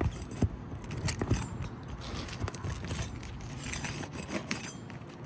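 Irregular clicks, knocks and scraping as roofing staples are pulled and a 3-tab asphalt shingle is worked loose, with a few sharper knocks in the first second or so.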